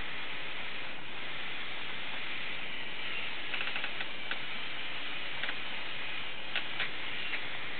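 Steady hiss with scattered light plastic clicks in the second half, from the K'nex crane's gears and parts as the motorised mechanism moves. The gears are set up for speed rather than torque, so they grind and slip.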